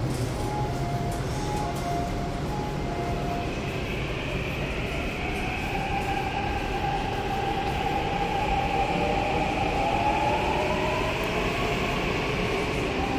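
Subway train running on the track behind the platform screen doors: a steady rumble with an electric motor whine that glides upward in pitch from about the middle on. A few short tones sound in the first few seconds.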